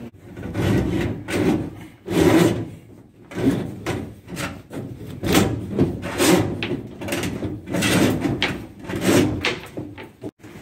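Blue flexible plastic conduit holding battery cables being pushed and worked into a boat's gunnel, scraping and knocking against the aluminium side panel and woodwork in repeated, irregular strokes.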